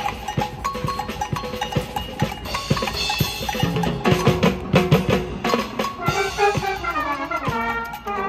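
A school wind band playing live: a drum kit and percussion keep a steady beat under brass and wind parts, with a melody line moving more busily near the end.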